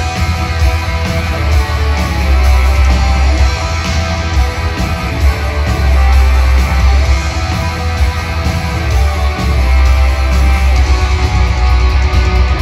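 A black metal band playing live at full volume: dense distorted electric guitars over booming low bass, without a break.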